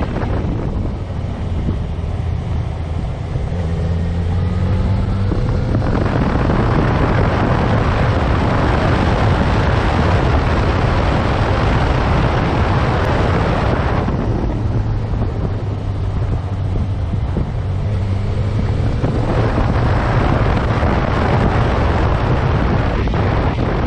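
Yamaha FZ6R motorcycle's inline-four engine running on the move, its pitch rising and falling with the throttle. Heavy wind noise on the microphone swells over two long stretches, from about six to fourteen seconds in and again for the last few seconds, largely drowning out the engine.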